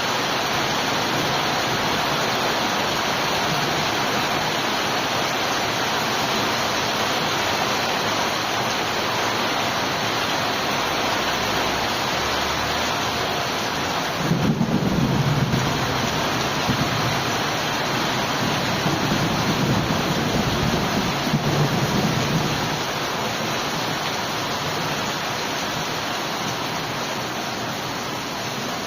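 Steady heavy rainfall. About halfway through, a long roll of thunder rumbles low for several seconds before fading back under the rain.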